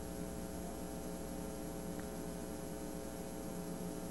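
Steady electrical mains hum, a low drone with several fixed overtones, over an even hiss in the recording's background.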